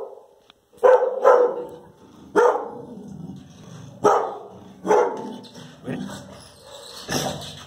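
Dog barking: about seven sharp barks at uneven spacing.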